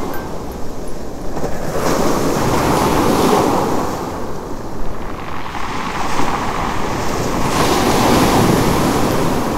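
Ocean waves washing in, a steady rush of surf that swells and fades in slow surges.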